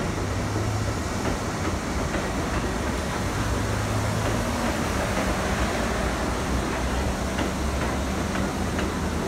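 R62A subway train moving along the elevated track past the platform: a steady rumble of steel wheels on rail, with a low hum and a few faint clicks scattered through it.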